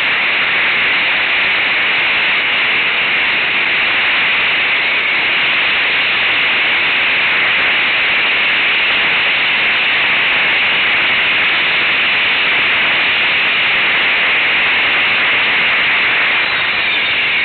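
Steady, loud static-like hiss from a camera microphone on a moving ATV, with no engine note or other distinct sound standing out of it.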